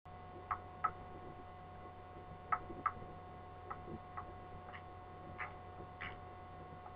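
About nine short, sharp clicks at irregular intervals, over a steady low electrical hum.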